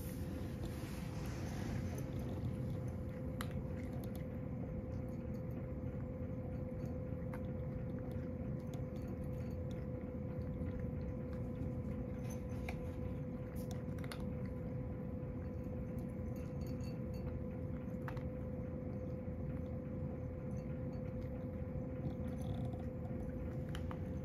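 A domestic cat crunching dry kibble from a bowl, with scattered small crisp clicks of chewing over a steady faint hum.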